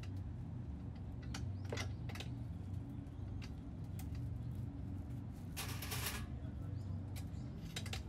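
Metal clicks and clinks of a rotisserie spit rod as a whole raw chicken is threaded onto it by hand, with a longer scrape about six seconds in. A steady low hum runs underneath.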